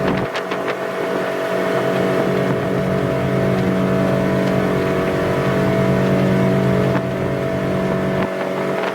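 Twin Volvo Penta 380 V8 sterndrive engines running steadily with the boat under way, a constant layered engine hum over rushing noise.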